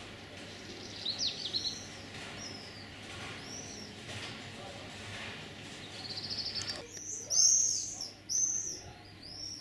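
Small songbirds chirping and singing in short, high, arched phrases and trills. The song grows louder and busier about two-thirds of the way in.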